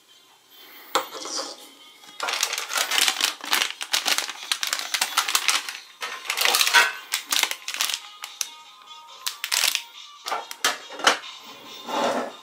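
Rapid clattering and rustling of small plastic toys and packets being rummaged through by hand inside a tin lunch box, easing off after about ten seconds into scattered clicks and a crinkle of a foil snack bag near the end. Faint music plays underneath.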